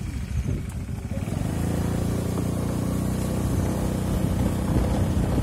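A motorcycle engine running steadily at low speed. It comes up about a second in and holds an even pitch.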